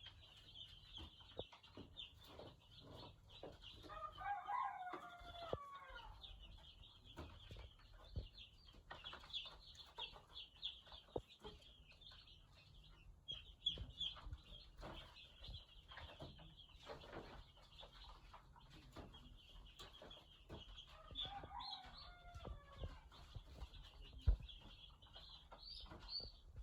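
Day-old broiler chicks cheeping continuously in a dense, high chorus, with many short taps among them. Twice, about four seconds in and again about three-quarters of the way through, an adult chicken gives a longer, lower call that rises and falls.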